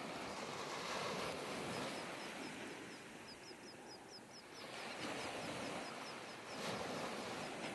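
Small waves washing up on a sandy beach, rising and falling in surges. A rapid series of faint high chirps runs through most of it.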